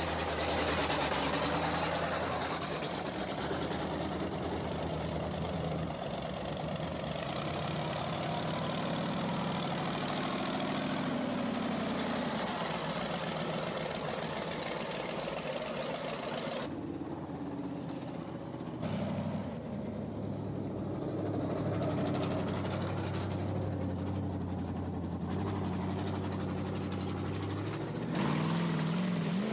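Monster truck engines idling steadily. A little past halfway the sound changes abruptly and the high hiss drops away, leaving the low engine note.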